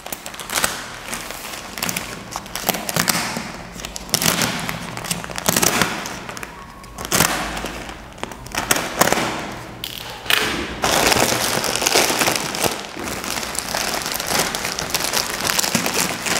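Thick plastic courier mailer being slit with a knife and torn open, crackling and crinkling in irregular bursts. From about eleven seconds in the plastic rustles steadily as it is pulled apart.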